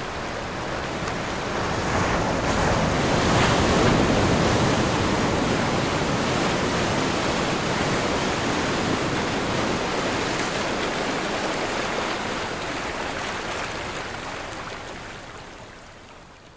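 Heavy seas breaking over and washing across a merchant ship's deck: a steady rush of surging water and spray with wind, loudest about four seconds in and fading away over the last few seconds.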